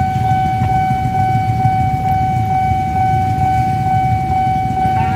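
Railway level crossing warning alarm sounding a steady high tone as a train approaches, over a continuous low rumble.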